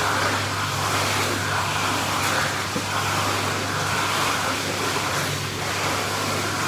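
Jetted pool's jets and pump running: a steady rush of churning water over a constant low motor hum, with a swimmer splashing in it.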